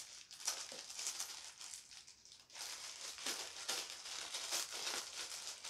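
Clear plastic shrink-wrap being peeled and pulled off a paperback book, crinkling and crackling in fits, with a short lull about two seconds in.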